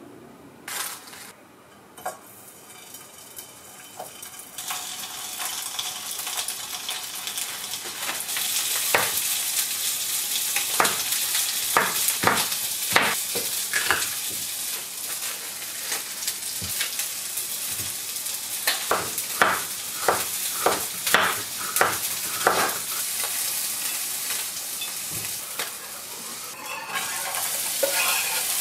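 Sliced onions and green peppers sizzling as they stir-fry in a frying pan, with a wooden spatula knocking and scraping against the pan again and again. The sizzling is faint at first and builds up over the first several seconds.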